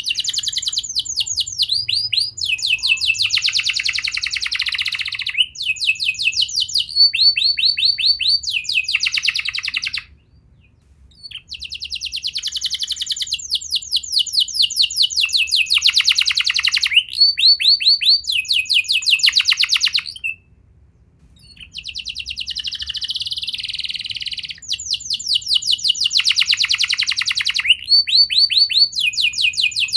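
Domestic canary singing long song phrases made of rapid trills and rolls that switch between higher and lower notes. The song breaks off twice briefly, at about a third and two thirds of the way through.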